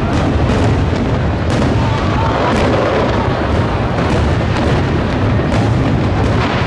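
Aerial fireworks shells bursting in quick succession, a steady run of booms and cracks with no pause, over continuous background noise.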